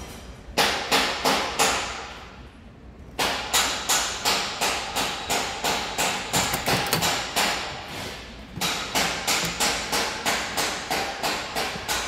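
Steady hammering: quick, evenly spaced blows about three a second, in runs broken by two short pauses.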